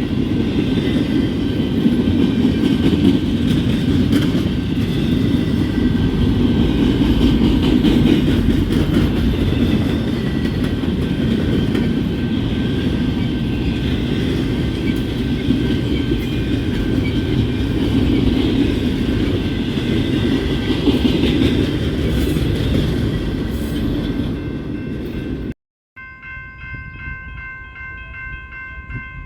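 A train passing close by: a steady loud rumble of wheels on rail with faint steady high-pitched squeal tones over it. After a cut near the end, a quieter steady pulsing ringing tone is heard instead.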